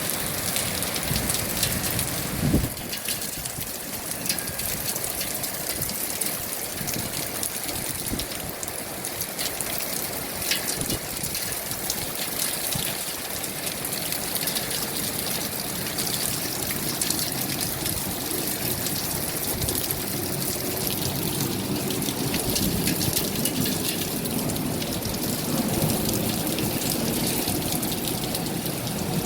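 Rain falling steadily, a dense patter of drops with the sound of running water, and one short thump about two and a half seconds in.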